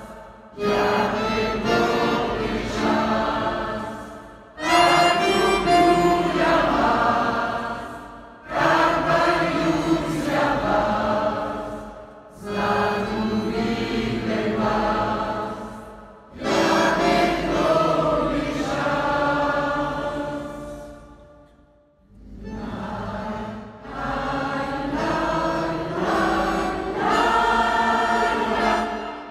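Mixed choir of men and women singing together in phrases of about four seconds, each starting strong and fading, with short breaks between them and a longer pause about 22 seconds in.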